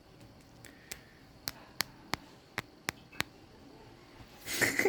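A series of sharp, separate clicks or taps, about eight of them over two and a half seconds, followed near the end by a louder burst of rustling noise.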